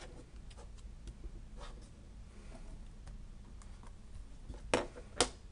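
Light clicks and taps of stamping supplies being handled on a desk, including a small ink pad and the clear acrylic lid of a stamping platform, ending in two sharper clicks about half a second apart.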